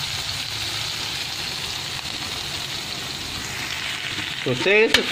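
Ground pork with onion and garlic sizzling steadily as it sautés in a hot wok; a voice starts near the end.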